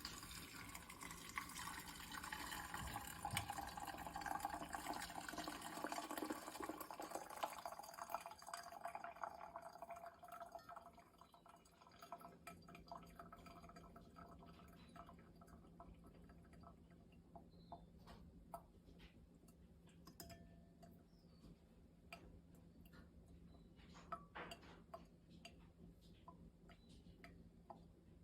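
Liquid pouring steadily for about ten seconds, its pitch falling over the first few seconds, then tailing off into scattered drips and small clicks.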